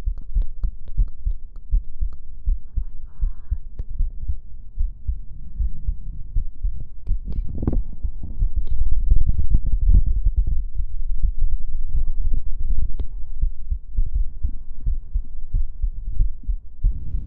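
Amplified human heartbeat: a run of low, muffled thumps that grows louder for several seconds about halfway through.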